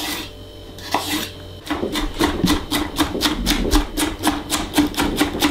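A chef's knife chopping celery on a wooden end-grain chopping board: after a slow first stroke, rapid even chopping of about six knocks a second starts about a second and a half in.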